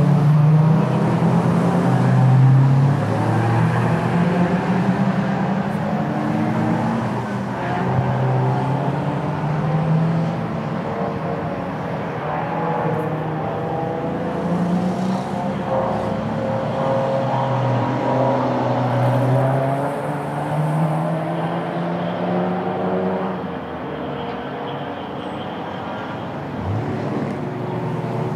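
Engines of several amateur race cars running hard as they come through a corner one after another, their engine notes overlapping and rising and falling in pitch. The sound eases for a few seconds near the end, then builds again as another car approaches.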